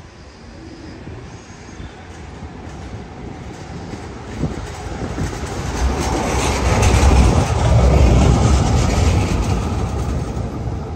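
A Socimi low-floor electric tram running on street rails, approaching, passing close by and moving off. Its rumble builds steadily to a peak a little past the middle, with a higher hiss from the wheels on the rails, then fades.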